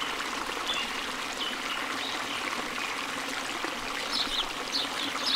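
Wire balloon whisk beating a thin liquid sauce in a bowl: a steady, wet swishing.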